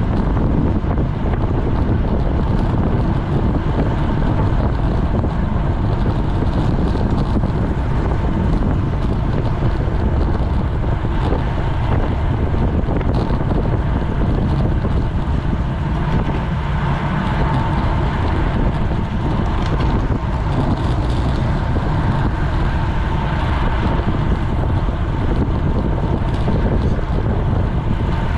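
Wind rushing over a GoPro's microphone on a road bike at racing speed: a loud, steady, low rush with no let-up.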